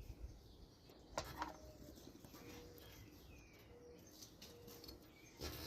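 Near silence with a faint background hum. A single sharp click comes a little over a second in, with a few faint short low hoots in the middle and a soft knock near the end.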